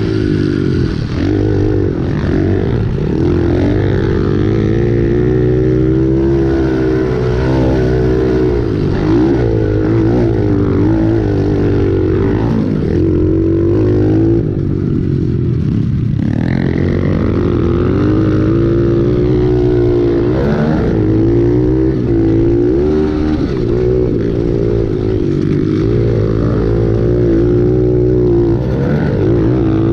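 Pit bike engine heard from on board, revving up and falling off again and again as the rider works the throttle and gears around a dirt motocross track, with a short drop in revs about fifteen seconds in.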